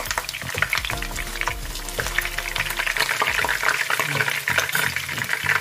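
Chicken wings sizzling and crackling in hot oil in a frying pan, with metal tongs scraping and tapping against the pan as the pieces are turned.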